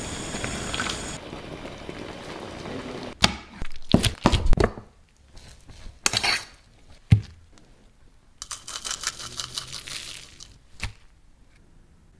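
Kitchen sounds in quick succession: sauce simmering and sizzling in a frying pan for about three seconds, then a run of knocks and clinks of utensils against a steel saucepan as a fork works through cooked rice, then about two seconds of crisp crinkling rustle and a last click.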